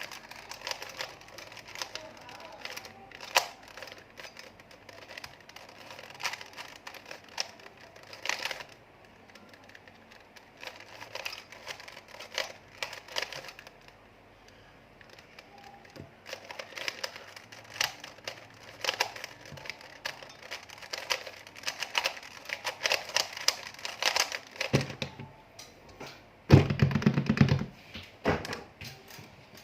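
Keys being typed: runs of quick clicks in bursts, with a pause of several seconds partway through. Near the end, a louder low thump lasts about a second.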